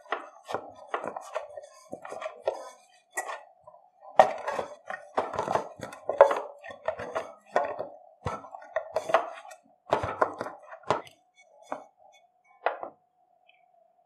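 Hand mixing and kneading poori dough in a stainless steel bowl: irregular knocks, squelches and scrapes of fingers and dough against the steel, dying away near the end.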